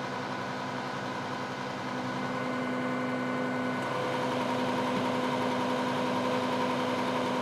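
A vehicle engine idling steadily, a low hum with steady tones over it that shift slightly about four seconds in.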